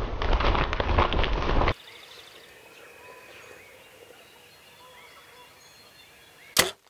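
Wild turkeys' wings beating hard as a shot bird flops among the flock for about a second and a half. This gives way to quiet with faint songbird calls, then one sharp crack of a bow shot near the end.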